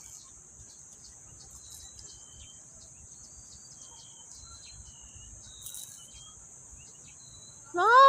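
A steady high-pitched insect drone, with short bird chirps scattered through it. Near the end a woman exclaims a loud "Ah!".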